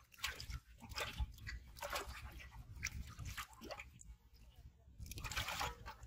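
Live fish splashing and thrashing in a metal pot of water as one is released into it, in irregular wet splashes and sloshes with a second flurry near the end.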